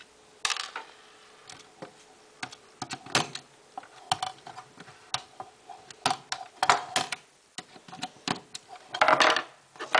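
Irregular clicks, taps and short scrapes of a screwdriver and hands working on a die-cast Bburago model car while its screws are taken out.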